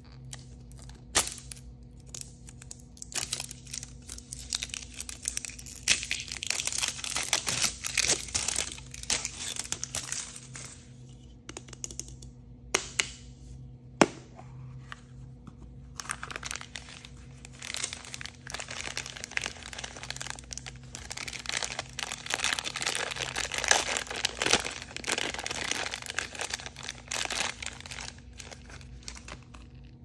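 Plastic wrapping being peeled and torn off a plastic Mickey Mouse head toy capsule, then a clear plastic bag crinkling as the figure inside is unwrapped. A few sharp plastic clicks stand out, the loudest about halfway through as the capsule comes open.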